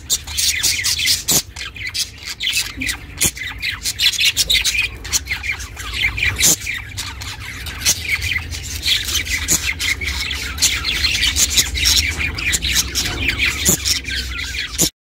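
Budgie chirping and chattering in a dense run of short, high chirps and squawks. The sound cuts off suddenly near the end.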